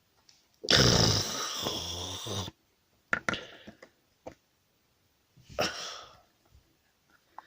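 Thick toy slime squelching and sucking with a wet, rattling noise as it is worked out of a small slime can, followed by a few light clicks of the plastic can and a second shorter squelch.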